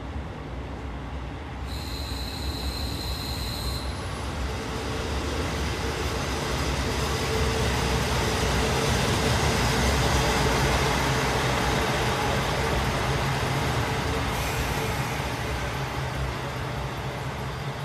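JR Hokkaido KiHa 40 diesel railcar running along a station platform: diesel engine rumble and wheel-on-rail noise grow louder as it comes close, peak about halfway through, then ease off. Near the start there is a high-pitched steady whine for about two seconds.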